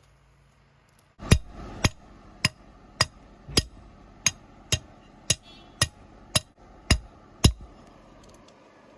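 Hand hammer striking a heated steel bar, with about a dozen evenly spaced ringing blows, roughly two a second. The blows start about a second in and stop near the end.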